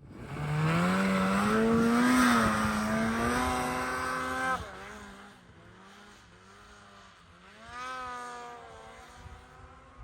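Snowmobile engine revving up and held at high revs, then backing off about four and a half seconds in; a second, fainter rev-up comes near eight seconds.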